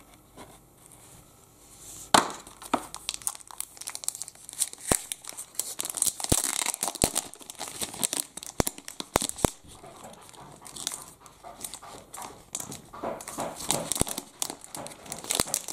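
Plastic packaging being handled, crinkling and rustling with scattered sharp clicks, starting about two seconds in.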